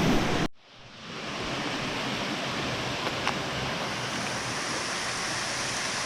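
Steady rushing of a waterfall. A louder rush cuts off abruptly about half a second in, then the water sound fades back in and holds steady.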